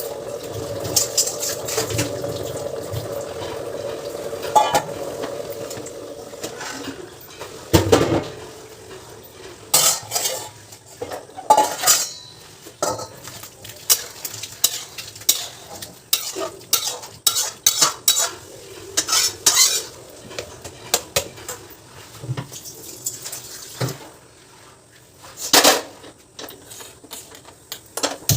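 Metal kitchen utensils clinking and clattering: a spoon scraping and knocking against a metal pot, with many sharp clinks. A steady hum runs under the first six seconds or so.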